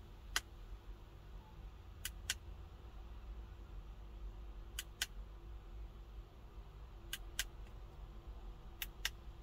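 Small plastic push-button on a duckling projector night lamp clicking, in press-and-release pairs about every two to three seconds, as the lamp steps through its light modes. A faint low hum runs underneath.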